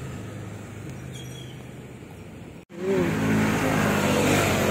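Street traffic: vehicle engines running with a steady hum. The sound cuts out abruptly a little over halfway through and comes back louder.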